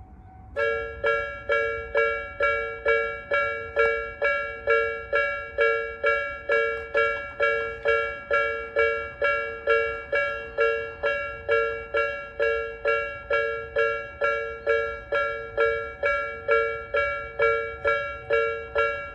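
Japanese railway level-crossing alarm of the 'Nikko sound' type used on the Tobu Nikko Line, an electronic bell tone struck about twice a second, each strike ringing and fading. It starts about half a second in: the crossing has activated to warn of an approaching train.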